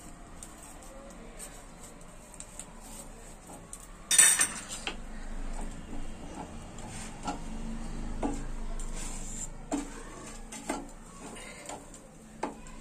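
Wooden spatula scraping and knocking on a flat tawa griddle while toasting sandwiches are turned and pressed: one loud scrape about four seconds in, then scattered short knocks.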